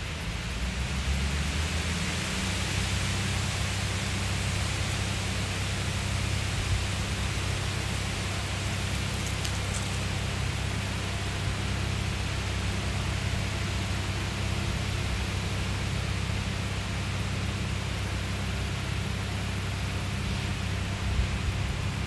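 Steady wind blowing through the trees and across the microphone: a low rumble under an even hiss of rustling leaves.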